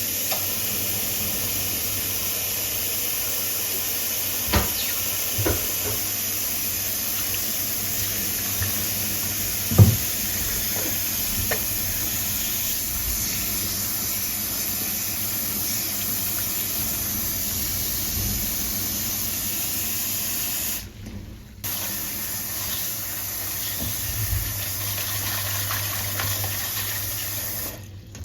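Steady rushing hiss of water, with a few light knocks and clicks over it; it drops out briefly near the three-quarter mark, then resumes.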